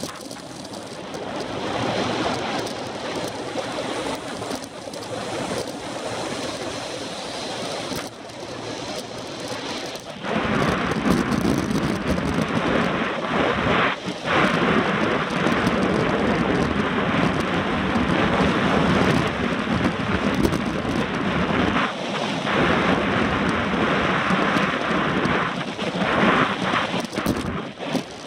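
Wind rushing and buffeting over the microphone of a handlebar-mounted camera on a moving road bike, mixed with tyre noise from the road. It gets louder about ten seconds in.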